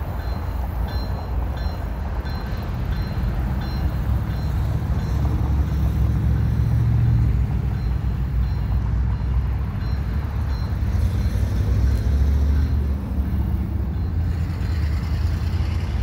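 Low rumble of road traffic passing, swelling twice, mixed with the diesel engines of distant approaching BNSF freight locomotives.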